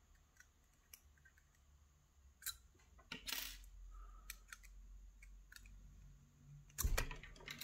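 Scattered small metal clicks and taps as needle-nose pliers grip and pull pins out of the wafer stack of a Bricard Supersureté lock core, with a louder click near the end.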